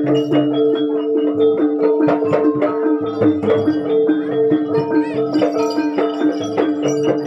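Kuda lumping accompaniment music in gamelan style: quick struck metallophone notes and drum strokes over two steady held tones.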